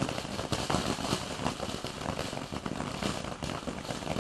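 Spark fountain firework spraying: a steady hiss with many small, irregular crackles.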